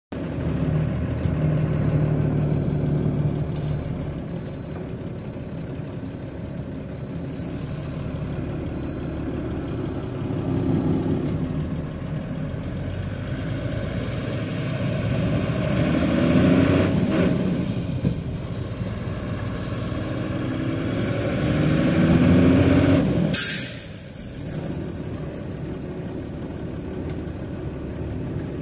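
Truck's diesel engine running from inside the cab as the lorry drives, its pitch rising twice as it pulls through the gears. A regular beep repeats about one and a half times a second through the first third, and a sharp air-brake hiss comes near the end.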